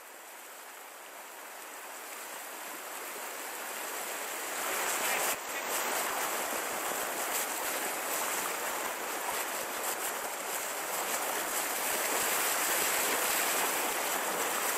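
Fast river rushing over shallow rapids, a steady rush of water that grows louder over the first five seconds and then holds.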